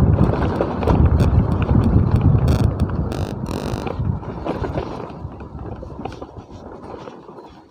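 Motorcycle riding along a rough lane, with a low rumble, wind buffeting the microphone and scattered clicks and rattles. The rumble fades over the last few seconds as the bike slows.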